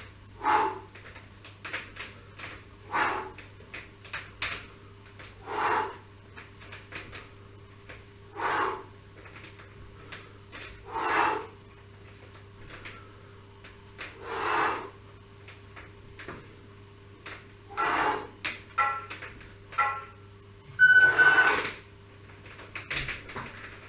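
A man breathes hard through a set of suspension-trainer rows, with a forceful exhale at each rep about every two to three seconds. The last exhale near the end is the loudest.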